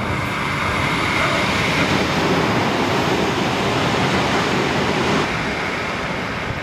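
Adelaide Metro 4000-class electric multiple unit passing through a station at speed without stopping: a loud rushing of wheels on rail and moving air, loudest as the cars go by, then dropping off suddenly about five seconds in.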